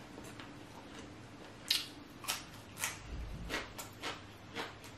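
Close-miked chewing of a mouthful of boiled sausage: soft wet mouth clicks and smacks, about two a second, starting a little under two seconds in.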